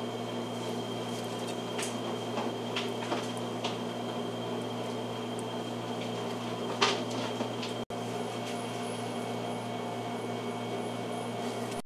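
A steady hum runs throughout, with a few faint ticks and one sharper click about seven seconds in. The sound cuts out for an instant just before eight seconds.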